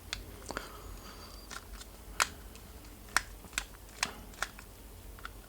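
Sharp, irregular clicks and taps of a small screwdriver and plastic parts being handled at the screws of a camera's top cover, about ten in all, the loudest a little past two and three seconds in.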